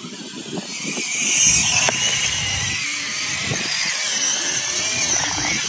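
Radio-controlled rock crawler driving over dirt and rocks: its electric motor and gears whine, with gravel crunching under the tyres. The whine gets louder about a second in.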